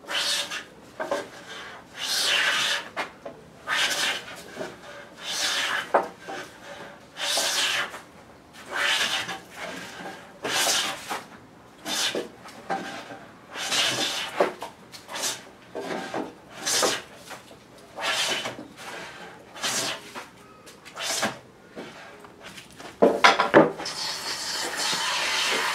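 Japanese wooden hand plane (kanna) shaving a wooden board, a scraping stroke every one to two seconds as the blade takes off curled shavings. Near the end the strokes give way to a steady hiss.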